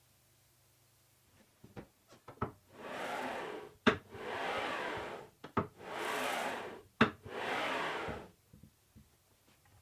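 Circular-saw carriage of a homemade vertical panel saw sliding along its aluminium rails in four smooth strokes of about a second each, with a sharp knock between strokes, and a few light clicks just before the first stroke.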